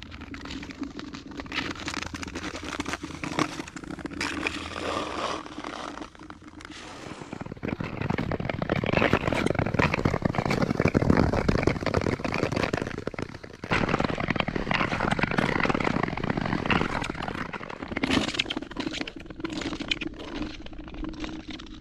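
Nordic skate blades scraping over rough, rippled lake ice, a dense crackling scrape that gets louder about seven seconds in and eases briefly near the middle.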